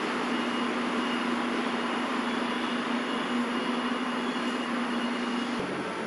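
Steady background noise of city traffic, with a low steady hum that cuts off abruptly near the end.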